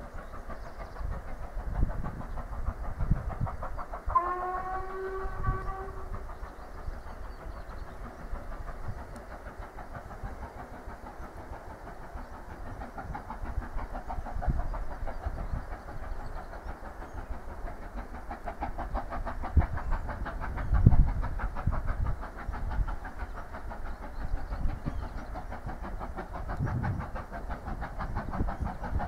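Whistle of the LMS Black Five steam locomotive 45231 sounding once in the distance for about two seconds, about four seconds in, over the steady sound of the engine working hard up the gradient. Irregular low rumbles of wind on the microphone come and go, the strongest about two-thirds of the way through.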